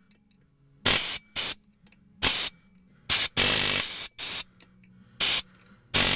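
Pneumatic air hammer fired in about seven short bursts with pauses between, the last one running over a second. It is hammering on the cut metal case of a control-arm bushing to break it loose.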